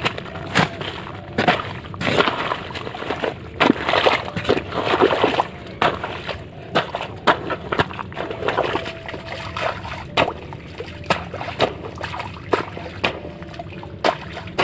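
A hoe being driven into waterlogged mud in a flooded paddy field, puddling it: repeated wet sloshing and splashing strokes, roughly one or two a second, each with a sharp knock.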